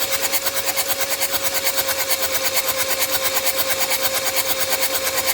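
2014 Hyundai Santa Fe's starter motor cranking the engine, a steady whine with a fast, even pulse, without the engine catching: the no-start the car is being checked for.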